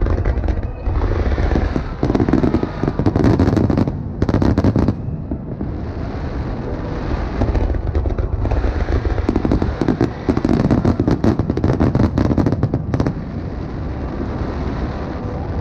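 Fireworks finale: aerial shells bursting in rapid volleys over a continuous low rumble of booms. Two dense stretches of fast crackling cracks, one starting about two seconds in and another about ten seconds in.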